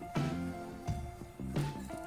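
Background music with a regular beat and sustained melodic notes.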